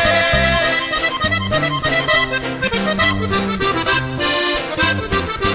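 Instrumental break in a norteño-style song: an accordion plays quick melodic runs over a stepping bass line.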